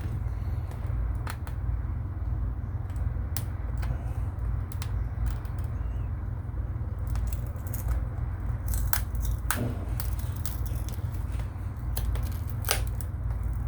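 Scattered sharp clicks and crackles of a tool prying and levering at a phone's cracking back glass, coming more thickly in the second half, over a steady low hum.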